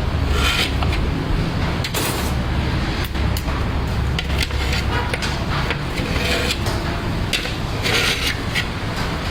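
Busy street-food stall din: scattered clinks, knocks and scrapes over a steady low rumble of traffic.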